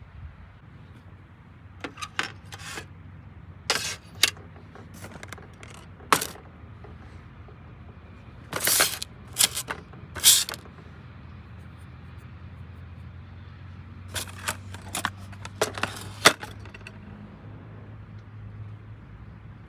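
Irregular clicks, clinks and short scrapes of small hard objects being handled, over a steady low hum.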